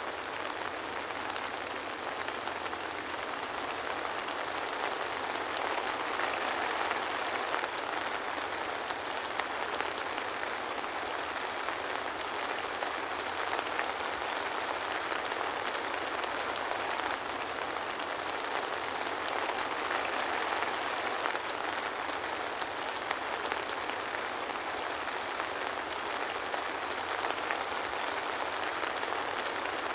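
Steady soft rain falling with a fine, even patter of drops and no thunder.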